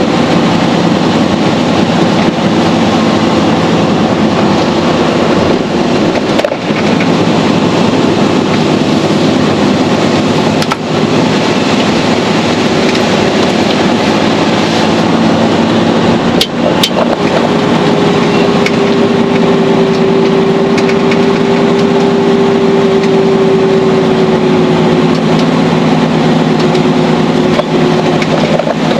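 Mercedes-Benz Actros truck driving, heard from inside the cab: a steady drone of diesel engine and road noise. A steady higher whine joins a little past halfway and holds almost to the end.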